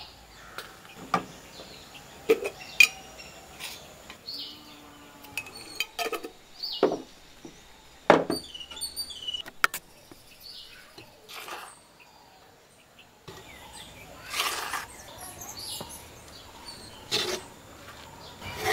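Scattered sharp clinks and knocks of utensils against a clay pot as ingredients are added, with birds chirping in the background. Near the end a wooden spoon starts stirring and scraping through the floury mixture.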